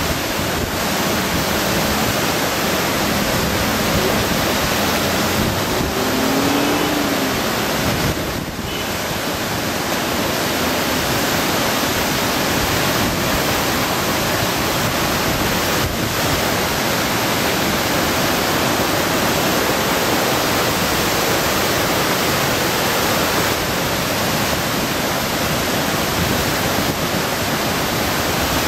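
Floodwater of a typhoon-swollen river rushing and churning past the piers of a highway bridge: a loud, steady, unbroken rush of water.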